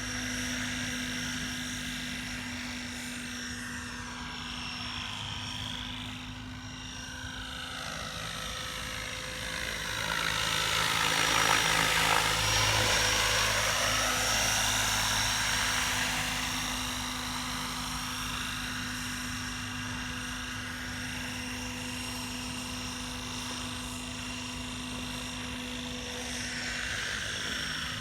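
Electric 12-cell radio-controlled helicopter in flight: a steady rotor and motor whine that swells as it passes close about ten to sixteen seconds in, then settles back.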